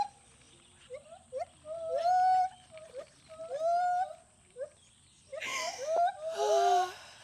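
Repeated short monkey-like hoots, each rising quickly in pitch and then holding, coming in quick groups. Near the end they turn into louder, breathier cries.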